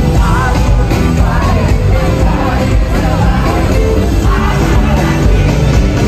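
Live gospel worship music from a band with drums, keyboards and guitars, with singers' voices gliding over it, loud with heavy bass.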